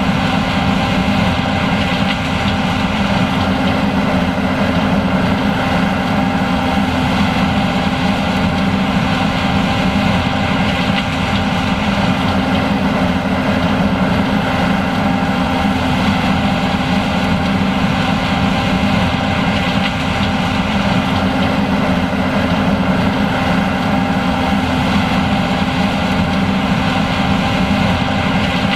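John Deere S780 combine harvester running steadily while harvesting corn: a constant engine drone with several steady whining tones riding above it.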